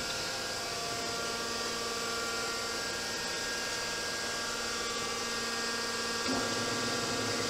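Gardner 2H30-30 double disc grinder running with a steady electric hum. About six seconds in, a button on its control panel switches on the part-carrier rotation and a lower drone joins the hum.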